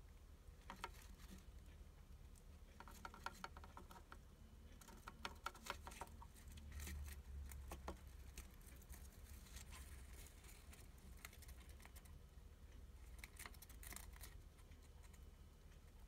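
Hamster chewing a cicada: several short runs of quick, crisp crunching clicks, a few seconds apart, as the insect's hard shell is bitten through.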